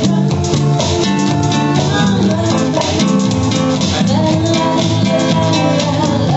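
Music from a guitar trio, the guitar playing throughout.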